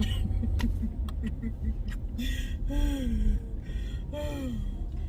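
Low, steady rumble of a car's interior while driving, with a few light clicks near the start and two drawn-out wordless vocal sounds from a person about two and four seconds in.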